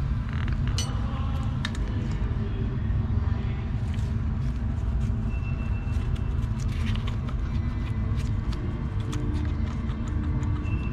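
Scattered light metal clicks and taps as the four-carburetor bank of a 1982 Yamaha XJ650 is turned over and handled, over a steady low rumble.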